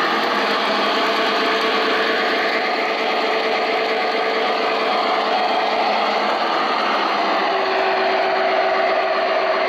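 O scale model diesel locomotive running on its track, its onboard sound system playing a steady diesel engine sound through a small speaker, with no deep bass and a couple of held tones in the hum.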